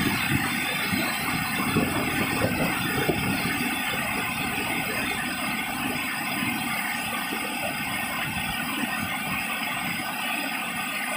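Steady rush of river water pouring down a concrete weir spillway and churning across its apron.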